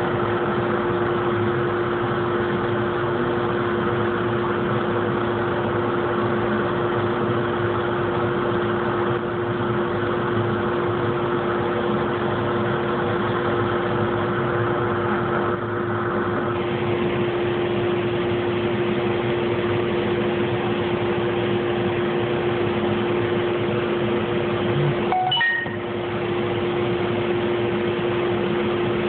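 Laser engraving machine running while raster engraving: a steady mechanical hum with a constant low tone, broken by a brief click and dip near the end.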